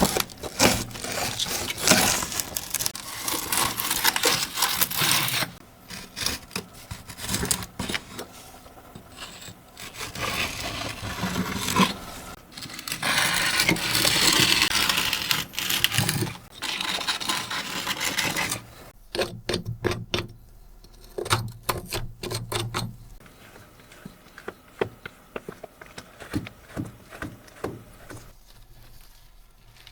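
Scrubbing and scraping at a dirty computer keyboard: several long spells of rough scratching, with runs of light plastic clicks and taps in between.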